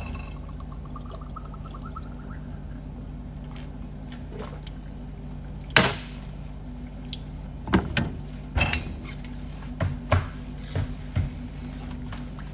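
Liquid being poured into a small glass, a pulsing gurgle rising in pitch over about two seconds as the glass fills. After it comes a scattering of sharp knocks and clinks of glassware being handled and set down, over a steady low hum.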